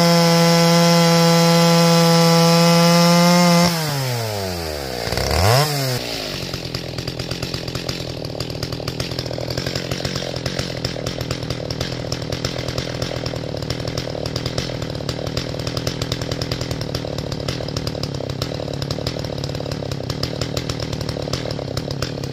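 Stihl 029 two-stroke chainsaw with a muffler mod, held at full throttle while cutting into a log for about four seconds. The throttle is then let off and the revs fall, there is a quick blip of throttle, and the saw settles into idle for the rest of the time.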